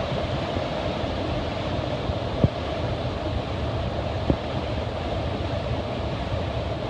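Steady rushing of a large waterfall, with two brief knocks about two and a half and four seconds in.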